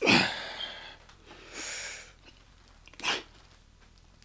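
A man's sharp, forceful exhales as he curls a heavy kettlebell, about one every second and a half: the breathing of exertion on each rep. The first blast, right at the start, is the loudest.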